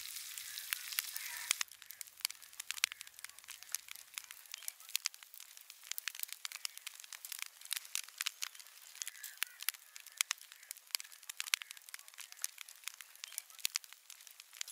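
Small wood fire of twigs and branches crackling under a wire grill, with sharp snaps coming irregularly several times a second, after a louder hiss in the first second and a half.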